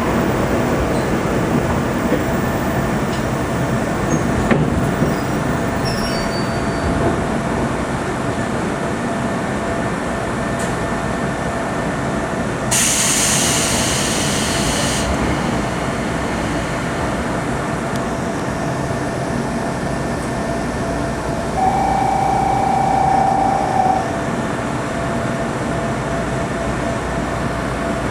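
Sanki Railway passenger train running, heard from inside the car: a steady rumble of wheels on rail with a faint steady whine. About halfway through there is a two-second hiss, and a short steady tone sounds about three quarters of the way in.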